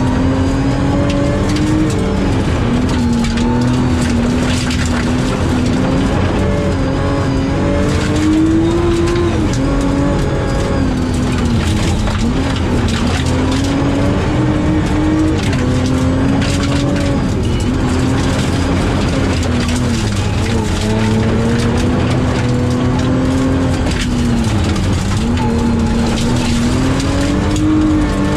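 Rally car engine heard from inside the cabin at speed, its revs rising and falling again and again, over a constant rumble of tyres on a gravel road.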